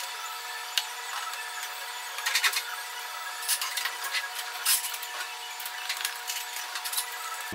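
Floor-cleaning sounds: a mop working the floor and tables being wiped, with scattered knocks and clatters of the mop handle and furniture, over a steady electrical hum.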